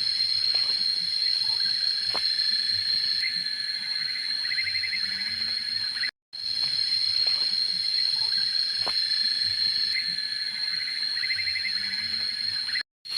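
Insects shrilling steadily at a high pitch, with short trills now and then. The sound drops out completely for a moment twice.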